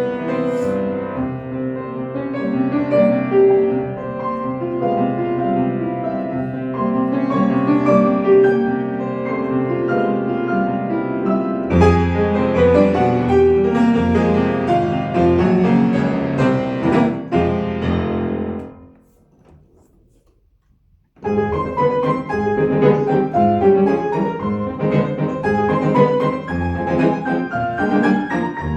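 Solo piano playing classical music. The playing dies away about two-thirds of the way in, leaving a couple of seconds of near silence, then a new passage begins.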